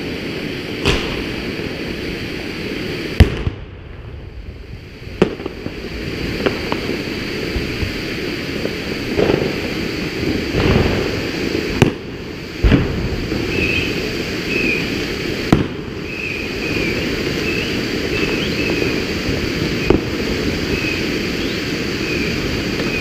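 A 1500 g colour fountain firework burning with a steady rushing hiss of sparks. Sharp cracks are scattered through it, the loudest about three seconds in.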